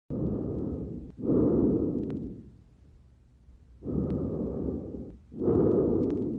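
Lung breath sounds heard through a stethoscope: two full breaths, each an in-breath and an out-breath as soft, airy rushes, with a short pause between the breaths.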